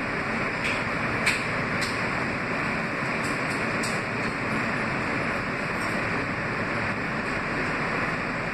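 Kawasaki R160B subway car moving along the track, heard from inside the car: steady rolling noise of the train, with a handful of sharp clicks in the first four seconds.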